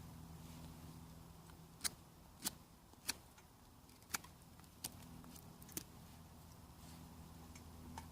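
Wood campfire crackling: about six sharp, separate pops spread over a few seconds. A low steady hum runs underneath.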